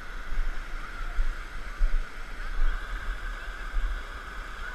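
Whitewater rapids rushing over rock ledges: a steady hiss of churning water, with an uneven low rumble underneath.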